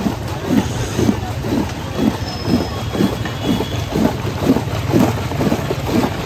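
A steel ladle churning ice chunks and mango pulp in a large metal pot, a rhythmic sloshing clatter at about two strokes a second over a steady low rumble.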